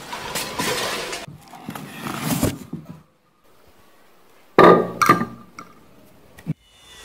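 Cardboard box flaps being opened and rustled, then a Crompton half-horsepower monoblock water pump set down on a stone counter with a heavy thunk about four and a half seconds in, followed by a few lighter knocks.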